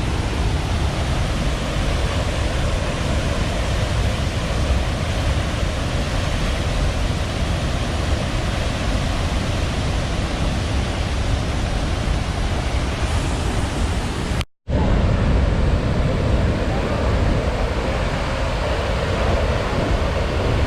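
Steady rushing roar of a large waterfall heard close up, with a heavy deep rumble under it. It cuts out for an instant about two-thirds of the way through, then carries on unchanged.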